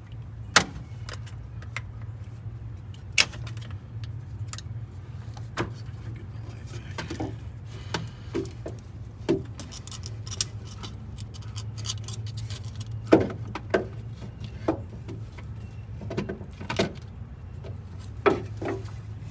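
Hand tools clicking and clinking on the valve gear of a stopped Detroit Diesel 6-71 as it is barred over and the exhaust-valve lash is checked. The sharp metal clicks come at irregular intervals over a steady low hum.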